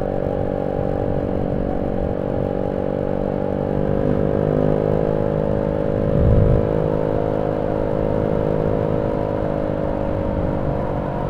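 Wind buffeting a cheap helmet-mounted clip-on microphone, wrapped in paper tape against wind noise, at about 60 km/h with the visor open, over the steady drone of the motorcycle engine. The wind noise still comes through, with a louder gust about 6 seconds in.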